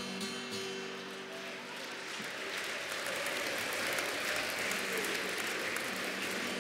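Audience applauding, the clapping building up about two seconds in, while the last acoustic guitar chord rings out and fades.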